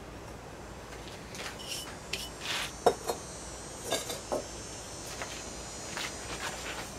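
Bisque-fired pottery clinking and knocking as pieces are handled and set down: a few short, sharp knocks, the loudest about three seconds in, with a cluster of lighter ones around four seconds.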